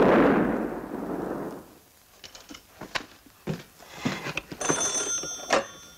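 A sudden loud blast rumble that dies away over about a second and a half: a mine blast set off without the agreed warning signal. A few knocks follow, then a telephone bell rings for about a second near the end.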